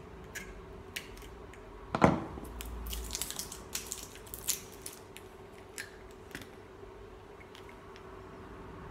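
Plastic cap being twisted and pulled off a small plastic e-liquid sample bottle, breaking its seal: scattered small clicks and crackles, with one short, sharp sound about two seconds in the loudest, over a faint steady hum.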